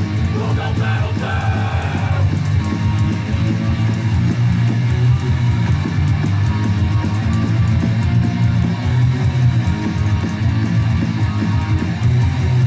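Rock song with distorted electric guitar, bass and drums playing steadily.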